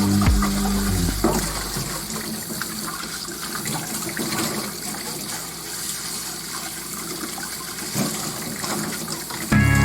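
Steady running water, with a couple of light knocks. Background music fades out over the first second or so and comes back just before the end.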